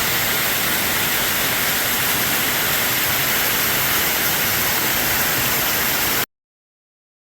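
Waterfall rushing down a mountainside, a steady hiss of falling water that cuts off suddenly about six seconds in.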